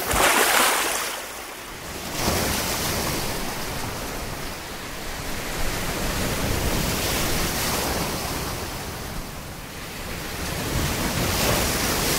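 Sea surf: waves breaking and washing on a shore, the rush swelling and easing every few seconds.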